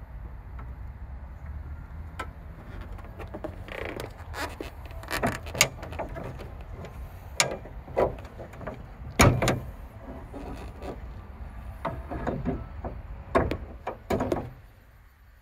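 Clicks and clunks of a Toyota Prius hood being unlatched and lifted onto its metal prop rod, an irregular run of knocks with the loudest about nine seconds in, over a low steady rumble.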